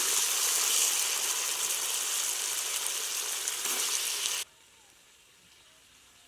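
Steady hissing noise, strongest in the upper range, that cuts off abruptly about four and a half seconds in, leaving near silence.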